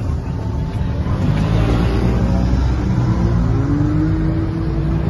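Side-by-side off-road vehicle engines running as a line of UTVs drives past, with one engine's pitch rising slowly and steadily as it speeds up.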